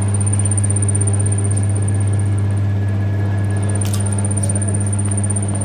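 Steady low hum with a faint high-pitched whine above it, and a single short click about four seconds in.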